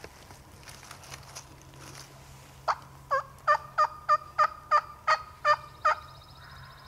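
A run of about ten wild turkey yelps, about three a second, each note breaking from a higher pitch to a lower one.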